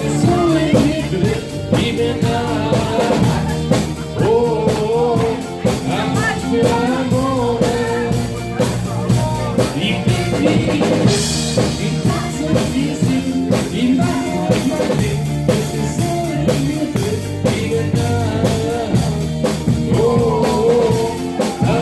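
A band playing a rock-style song, with a singer over a steady drum beat, bass and other instruments.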